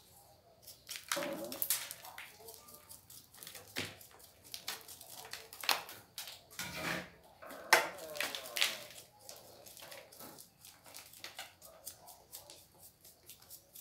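Irregular scraping, tapping and gritty rubbing of a damp sandy mix being worked by hand around the rim of an upturned plastic bucket on a board. Short clicks and scrapes come at uneven intervals, a few louder than the rest.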